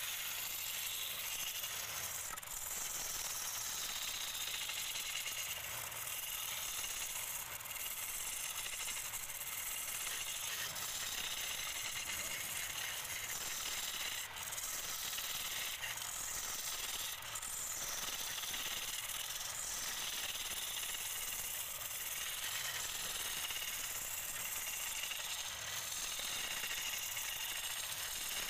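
Turning tool cutting the outside of a large wooden bowl spinning on a lathe: a steady hissing scrape as shavings peel off the wood.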